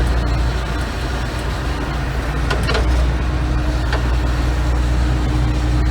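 Gleaner M2 combine's engine running steadily at a constant speed, a low drone; about three seconds in, a steady whine joins it, with a few light clicks.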